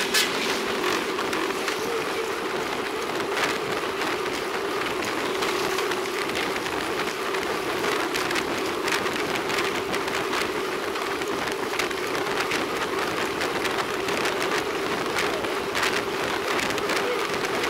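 Road bicycle rolling along a paved road, picked up by a bike-mounted camera: steady tyre and wind noise with a constant hum, and scattered light clicks and rattles.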